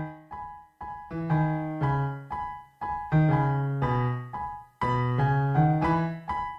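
Background music on a piano-like keyboard: a slow run of notes and chords, each struck and then fading.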